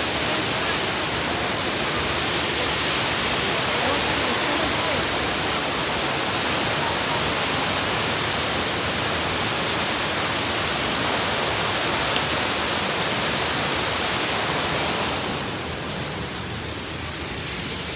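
Waterfall: a steady, loud rush of falling water, easing off a little near the end.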